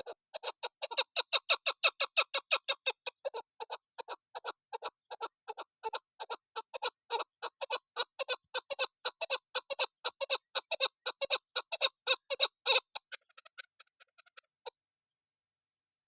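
Female chukar partridge calling: a long, rapid series of short clucking notes, about four a second, trailing off into a few faint notes near the end.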